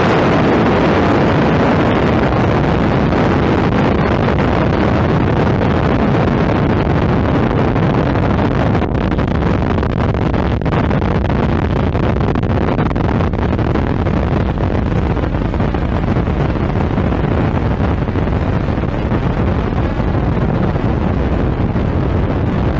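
Long, loud rumbling tail of an explosion sound effect: a dense, steady noise that eases only slightly and grows a little duller toward the end.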